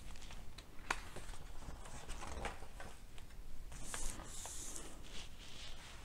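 Faint paper handling as a hardcover picture book's page is turned by hand: soft taps and rustles, with a brief swish of paper around four seconds in as the new spread is smoothed flat.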